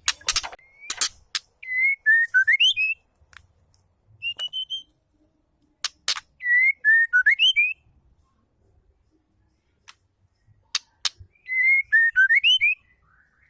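Female white-rumped shama calling: sharp clicking ticks followed by a short whistled phrase of gliding notes, repeated three times.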